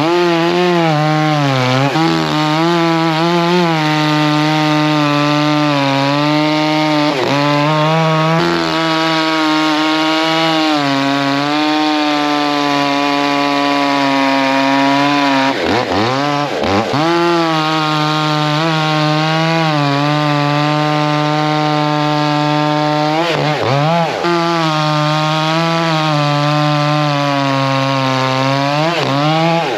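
Echo two-stroke chainsaw running at high revs while bucking oak into firewood rounds. Its engine note drops sharply and climbs back several times, most deeply around sixteen seconds in and again around twenty-three seconds.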